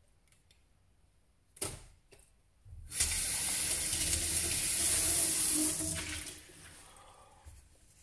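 Water running from a tap as a mug is rinsed: the flow starts suddenly about three seconds in, runs evenly for about three seconds, then tails off. A single short click comes a little before it.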